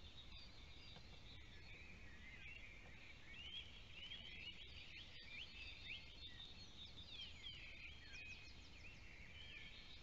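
Faint chorus of several small songbirds, many overlapping quick chirps and trills, over a low steady outdoor background.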